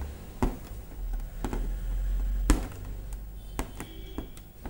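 Aari hook needle punching through cloth stretched taut on an embroidery frame while working a load stitch in zari thread, giving a sharp tap about once a second, the loudest a little past the middle, over a low steady hum.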